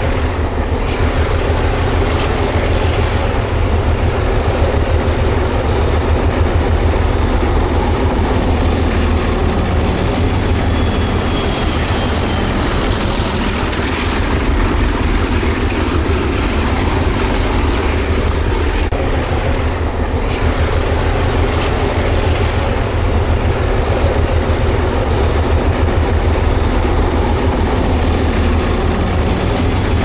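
An engine running steadily, a low drone that holds level without a break.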